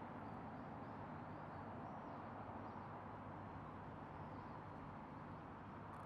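Steady low background rumble with faint, high twittering bird calls a few times: near the start, in the middle and again later.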